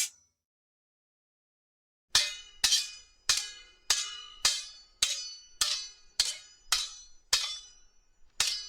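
Sword blades clashing: about eleven sharp metal-on-metal strikes at an even pace of roughly two a second, each ringing briefly. The strikes start after about two seconds of silence.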